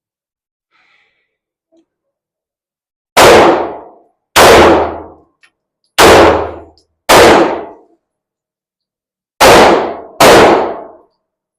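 Pistol shots fired in pairs: six loud shots in three pairs, each pair about a second apart, every shot ringing out briefly before it fades.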